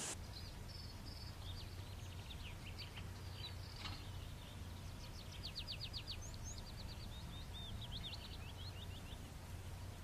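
A songbird singing a long, varied run of quick high chirps and short trills, including a burst of rapid, evenly spaced notes a little past the middle, over a steady low hum.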